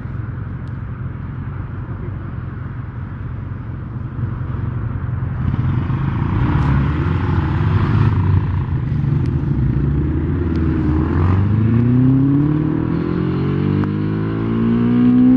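Motorcycle engines idling and then pulling away in traffic, with wind on the microphone. From about eleven seconds in, the engine revs climb in pitch twice as the bike accelerates through the gears.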